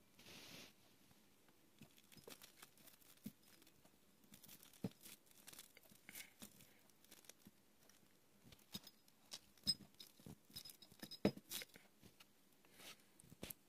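Faint handling noise from a hand-held camera being moved: scattered small clicks and rustles, with a few sharper ticks a little past the middle.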